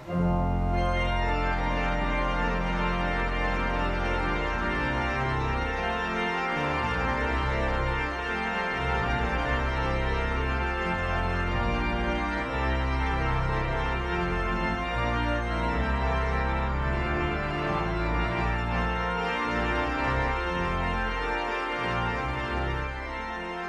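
Organ music: sustained chords over a held bass line, changing every second or two and easing slightly softer near the end.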